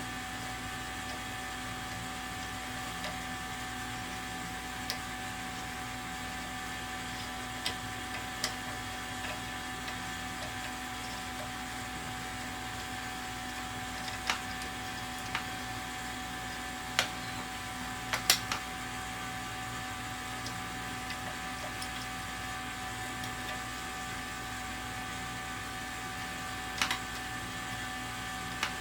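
Steady mechanical hum with a few fixed pitches, broken by scattered light clicks and taps of cable and plastic parts being handled and pushed into place on a laser engraver's frame. The clicks are loudest in a cluster at about 18 seconds.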